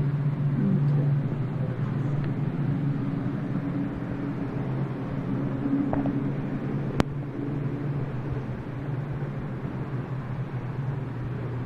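A steady low hum with a faint rumble under it, and a single sharp click about seven seconds in.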